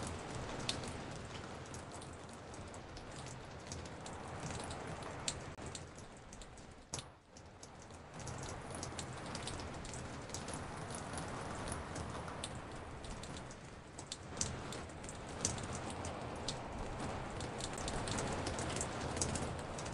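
Recorded raindrops dripping on a porch, many copies layered and panned around the listener: a steady patter with frequent sharp single-drop ticks, briefly thinning out about seven seconds in.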